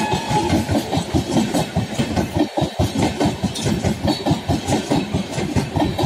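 Indian Railways passenger coaches of an express train passing at speed, with a rapid, even clickety-clack of wheels over the rail joints.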